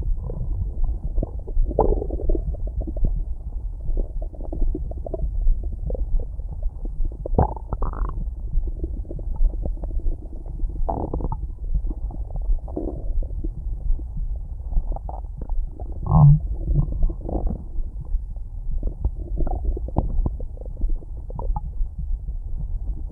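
Stomach growling: a steady low rumble broken by irregular gurgles, with a few louder gurgles about 8, 11 and 16 seconds in.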